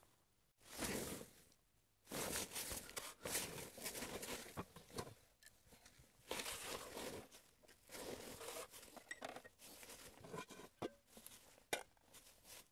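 Irregular crunching and scraping noises in quick bursts, with a sharp click near the end.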